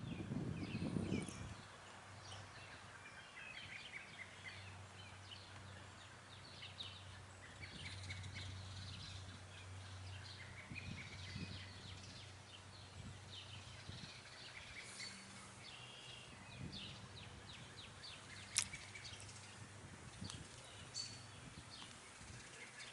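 Small birds chirping and twittering now and then in the background over a faint, steady low hum. A low bump sounds at the very start and a single sharp click about three-quarters of the way through.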